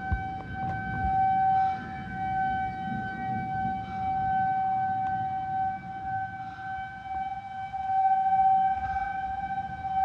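Federal Signal 2001-130 rotating outdoor warning siren sounding a steady tone for a storm warning. The pitch holds level while the loudness swells and fades as the siren turns, over a low rumble of wind and storm noise.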